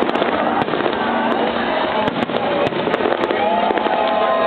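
A fireworks display: a rapid, irregular run of sharp bangs and crackles over a steady din of crowd noise.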